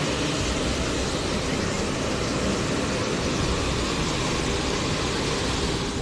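Floodwater rushing down a street: a steady, even rushing noise.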